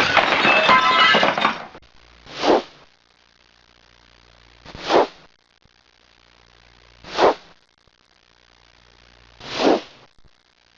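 A crackling, breaking burst of noise lasting under two seconds, then a whoosh repeated four times, about two and a half seconds apart.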